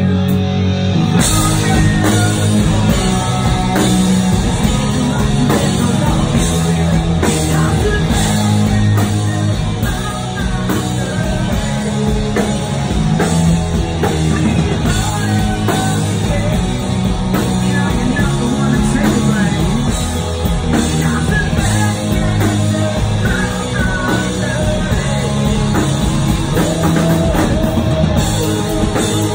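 Live hard rock band playing loud through a club PA: electric guitars, bass guitar and drum kit, with a sung vocal over them. Drums and cymbals come in about a second in.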